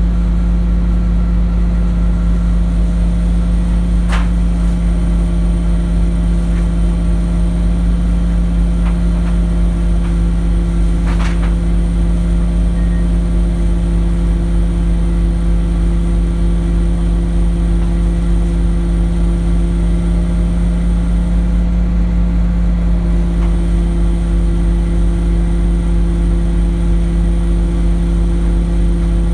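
Orion VII OG diesel-electric hybrid transit bus idling while stopped, a loud steady low rumble with a constant droning hum. Two brief clicks come through, about four and eleven seconds in.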